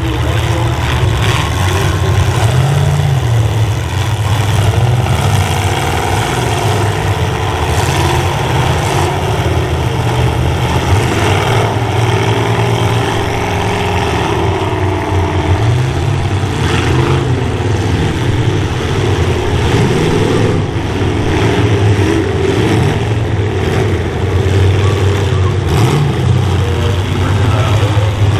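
Engines of several full-size cars racing in a pack, their pitch rising and falling over and over as they accelerate and ease off through the turns.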